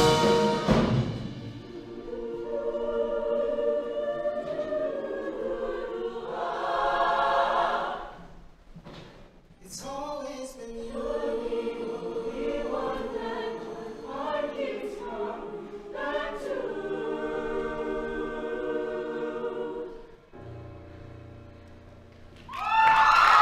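Show choir singing slow, held chords, dropping to a soft, low held note near the end. The audience breaks into cheering just as the song ends.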